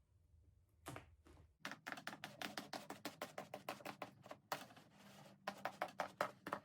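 Seat-cover seam stitches popping one after another as the seam is pulled taut and nicked with a razor blade: a quick run of sharp ticks, about eight a second, starting about a second and a half in, with a brief lull midway.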